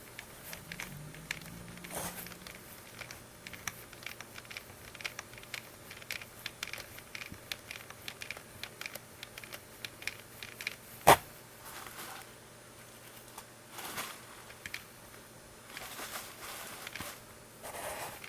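Hands handling small parts during a water-flosser repair: scattered light clicks, rustling and scraping, with one sharp click about eleven seconds in.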